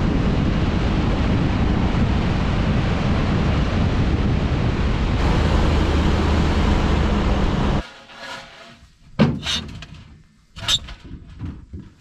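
Pickup truck driving on a gravel road, heard as steady wind rush and road rumble on a microphone mounted outside the cab. It cuts off abruptly about eight seconds in, followed by a few sharp metal clanks and scrapes at the door of a corrugated steel grain bin.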